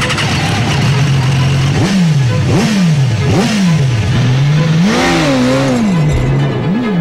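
BMW S1000RR's inline-four engine idling in neutral, then blipped with about five sharp throttle revs that rise and fall, one held a little longer about five seconds in.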